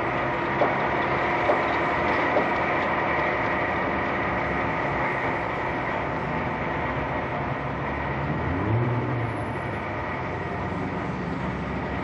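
Tower crane's hoist machinery running steadily, with a whining hum, as it lifts a loaded concrete bucket. There are a few light knocks in the first couple of seconds and a short low rising-and-falling tone about nine seconds in.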